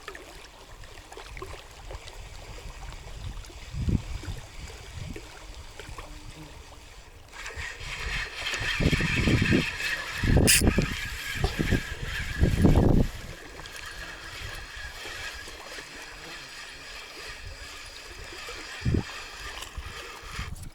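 Water splashing and gurgling, with a few dull thumps and one sharp click about ten seconds in.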